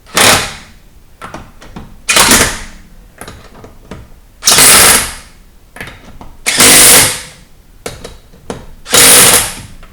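Impact wrench running lug bolts in on a wheel in five short bursts about two seconds apart, with small clicks of handling in between.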